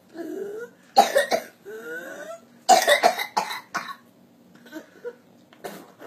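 Whooping cough (pertussis): two fits of harsh, rapid coughs, each run of coughs followed by a rising, high-pitched whoop as the breath is drawn back in.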